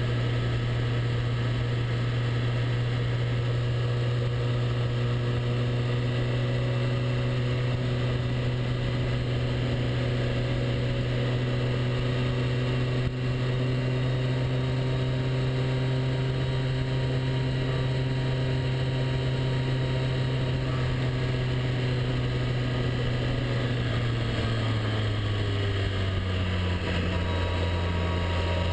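Motorcycle engine running steadily while riding, with wind and road noise, heard from a camera mounted on the bike. Near the end the engine note drops lower in two steps.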